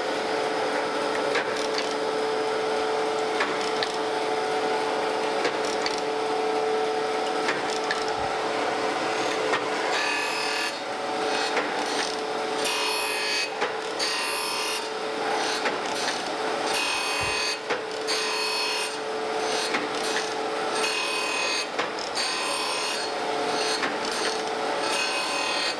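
Landis surface grinder running, its abrasive wheel grinding the bottom face of cast straight edge castings as the table reciprocates, with a steady hum from the spindle. From about ten seconds in, a hissing grind comes in repeated spells of about a second, each time the wheel passes over the castings and takes a light cut after a three-thousandths feed.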